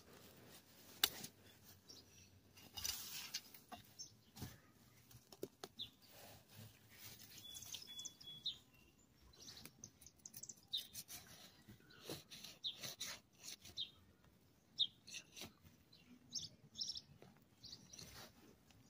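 Hand trowel and fingers scraping and digging in dry soil and mulch around a potato plant's roots, with rustling leaves and irregular small clicks and scrapes, the sharpest about a second in. Birds chirp briefly in the background.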